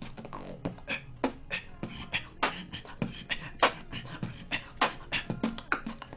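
Human beatbox beat: a quick run of sharp mouth-percussion strokes built around the cough snare, a snare made by a cough-like stab of air combined with a whispered hiss.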